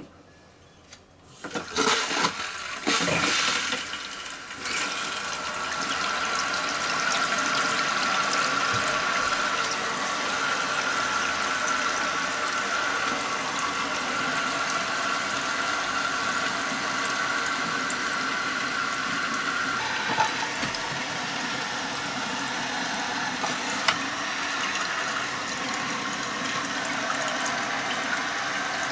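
Toilet tank refilling through a newly installed Korky QuietFill fill valve as the water supply is turned on: a couple of seconds of uneven sputtering gushes, then a steady hiss of water running into the tank with a faint whistle that fades about twenty seconds in.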